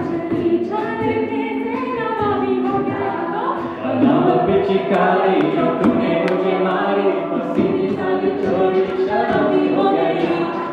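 A mixed-voice a cappella group singing, with lead vocals carried over the rest of the group's backing voices through microphones and no instruments. The singing gets louder about four seconds in.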